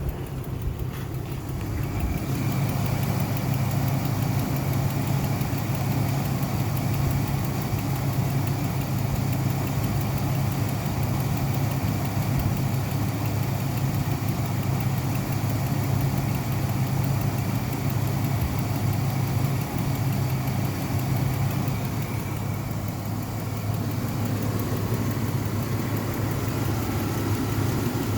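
Car engine idling steadily. The idle picks up about two seconds in and settles slightly lower near the end.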